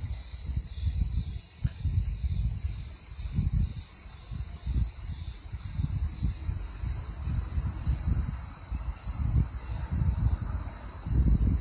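Steady, high-pitched insect chorus with a fast, even pulse, over irregular low wind rumble buffeting the microphone.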